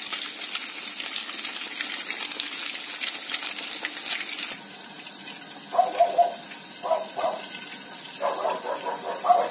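Zucchini rounds battered in flour and egg sizzling in hot oil in a frying pan, a steady crackling hiss that drops to a quieter sizzle after about four and a half seconds. A few short pitched sounds come over the quieter sizzle in the last few seconds.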